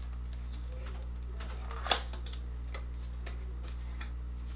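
A few light clicks and taps of cardboard makeup packaging being handled, the sharpest about two seconds in, over a steady low hum.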